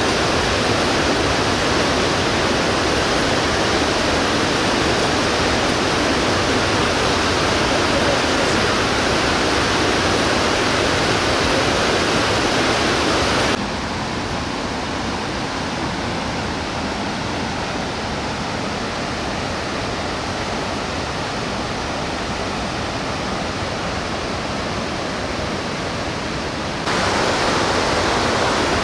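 Fast whitewater river rushing steadily. It drops a little quieter about halfway through and comes back up near the end.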